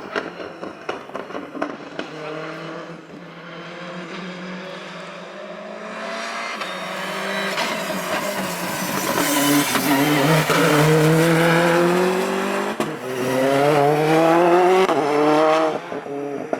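Rally car running hard through a stage: a run of sharp pops in the first couple of seconds, then the engine coming closer, loudest in the middle and near the end, its pitch climbing in repeated rising sweeps and dropping sharply at each gear change.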